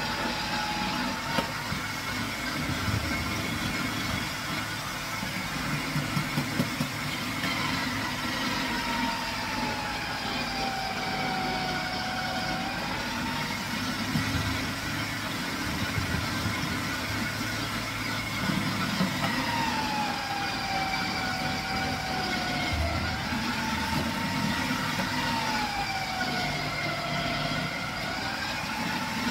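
Electric food processor motor running with its grating disc shredding squash pushed down the feed chute. Its whine sags in pitch several times as the squash is pressed against the blade, then climbs back as the load eases.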